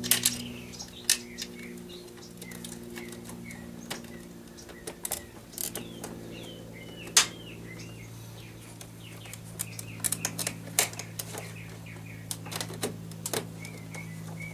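Scattered sharp plastic clicks and taps from the door handle assembly's locking rods being snapped back into place on a Toyota Camry's interior door panel, with the loudest click about halfway through. Birds chirp and a steady low hum runs underneath.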